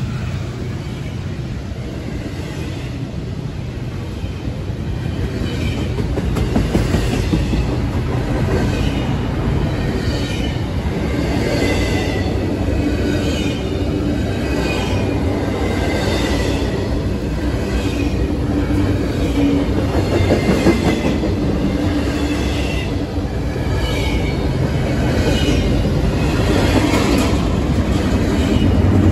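Double-stack intermodal container well cars rolling past close by: a steady rumble of steel wheels on rail, with recurring high wheel squeals coming and going every second or two.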